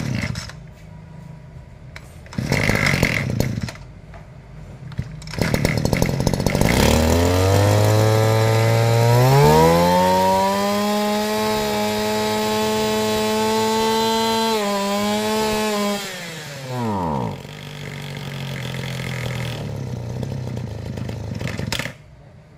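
Makita EM250 brush cutter engine being pull-started: a couple of short starter pulls, then it catches, revs up to a high steady speed for several seconds and drops back. It blips once, idles, and cuts off suddenly near the end.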